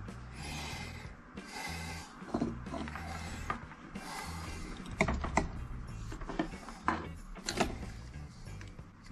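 Handling noises of soldering tools on a wooden workbench: three short scraping, rubbing sounds in the first half, then several sharp clicks and taps as tools are picked up and set down. Background music plays underneath.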